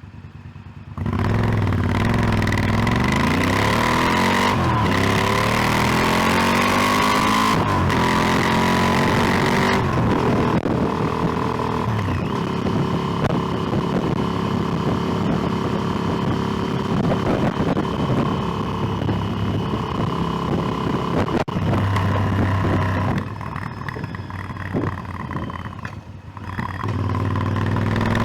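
Motorcycle engine pulling through the gears. Its pitch climbs and falls back with each shift for the first several seconds, then holds steady. About 23 seconds in it goes quieter as the throttle closes, then climbs again near the end.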